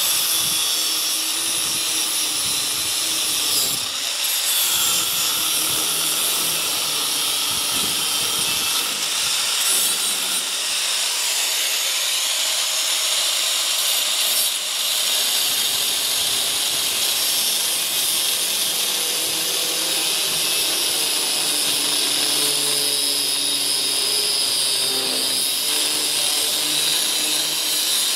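Angle grinder running steadily with its disc cutting into the steel lip of a trailer ball coupler, a continuous hissing grind of abrasive disc on metal. The coupler's lip is being trimmed back so it will fit over the ball without hitting the tractor frame.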